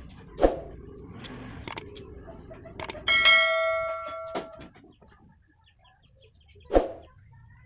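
A notification-style bell ding from a subscribe-button animation: a click, then a bright ringing chime that fades over about a second and a half. Two sharp knocks, one near the start and one near the end, are as loud as the chime at its peak.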